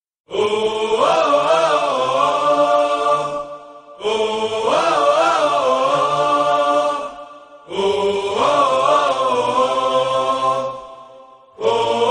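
Music: a chant-like melodic phrase that repeats almost identically about every four seconds, each repeat dipping away briefly before the next begins.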